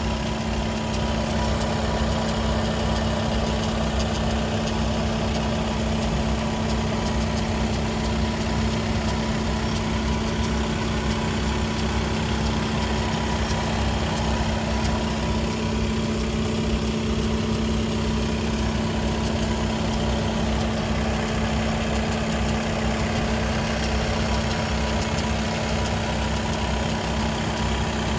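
Skoda Octavia RS 2.0 TDI four-cylinder diesel idling at operating temperature, with a steady drone that does not change. It carries an unidentified strange noise that the owner traces to the DSG gearbox and that a Skoda workshop could not diagnose.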